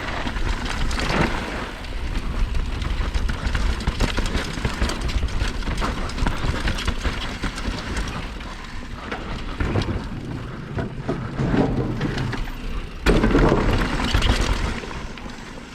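Mountain bike riding fast down a rough downhill trail: tyres rumbling over dirt and rocks while the bike's chain and frame rattle and clatter, with wind buffeting the microphone. A louder, rougher stretch comes a little after two-thirds through, then the noise eases off near the end.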